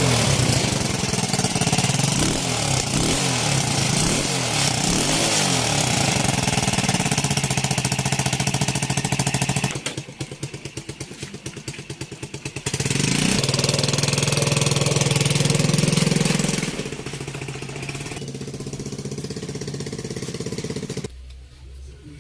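Small petrol engine with a freshly cleaned carburetor running and being revved: rising and falling in pitch, dropping to a pulsing idle about halfway through, revved again, then running lower before it stops suddenly near the end.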